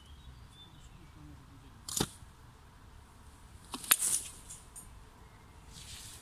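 Two sharp metallic clicks about two seconds apart, the second followed by a brief scraping rattle, as a buried anti-tank mine is jerked out of its hole by a hook and cord.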